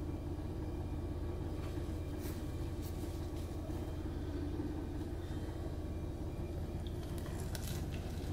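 A steady low mechanical hum, with a few faint light clicks scattered through it, mostly about two seconds in and again near the end.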